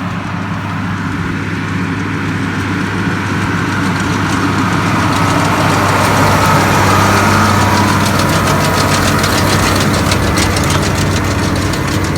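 A tractor pulling a working hay baler. The engine runs steadily under load while the baler's machinery clatters fast and evenly, growing louder as it draws close about halfway through.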